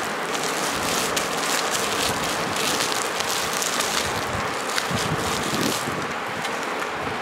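Plastic bubble wrap crinkling and rustling as hands unwrap a small packaged battery, a dense crackle that eases off about six seconds in.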